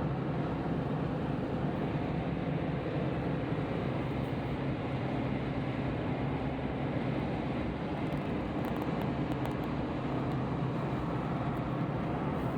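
Road noise and engine hum inside a moving car's cabin, steady.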